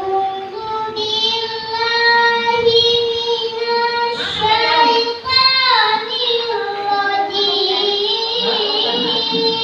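A boy reciting the Qur'an in the melodic tilawah style, holding long, ornamented notes that waver and slide up and down, with a short breath about five seconds in.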